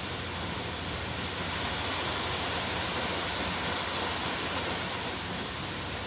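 Steady rush of falling water from a waterfall of Nunobiki Falls, an even roar that swells slightly in the middle.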